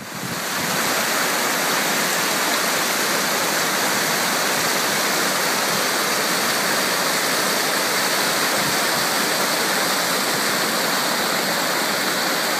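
Whitewater of a shallow river rapid rushing and splashing over boulders, a loud steady rush that comes up in the first second and then holds unchanged.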